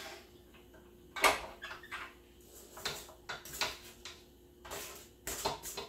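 A spatula scraping down the sides of a stand mixer's stainless steel bowl of cream cheese batter while the mixer is stopped: a string of short scrapes and knocks against the metal, the loudest about a second in.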